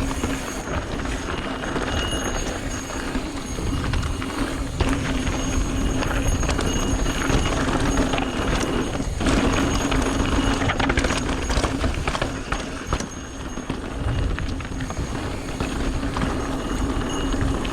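Mountain bike rolling over a rough dirt trail: tyres crunching over rocks and the bike rattling with many small, irregular knocks.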